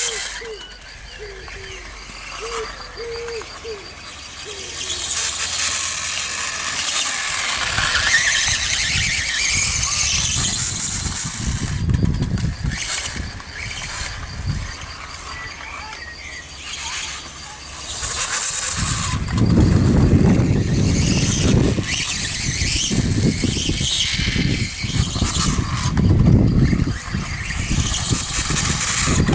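Electric motor and drivetrain of a Reely RC dirtbike whining as it rides, rising and falling with the throttle. From about two-thirds of the way in, heavier low rumbling is heard as well.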